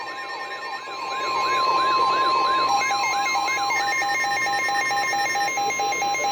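NOAA Weather Radio's steady 1050 Hz warning alarm tone, overlaid with weather radio receivers' alert sounds: a rising-and-falling siren about three times a second, giving way about three seconds in to rapid beeping about four times a second.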